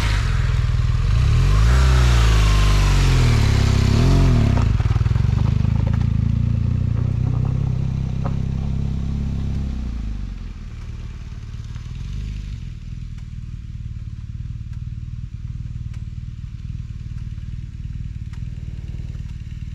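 A vehicle engine revving up and down a few times, then running steadily and more quietly from about ten seconds in.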